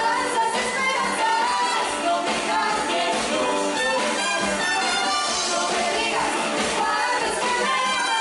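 A live band playing a song, with voices singing over electric guitars, bass, drums and keyboards.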